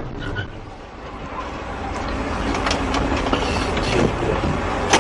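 Dashcam recording of a vehicle on the move: steady engine and road rumble that dips about a second in and then grows louder, with a few faint knocks and a sharp click near the end.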